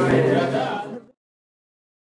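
Voices and live electronic music over a steady low hum, cut off abruptly about a second in.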